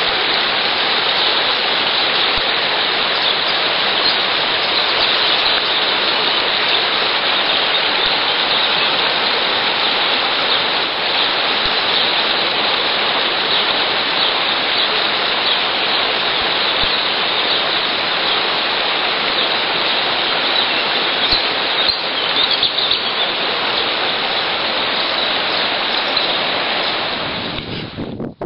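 Rushing river water running over a shallow, rocky bed: a steady hiss of flowing water that drops away near the end.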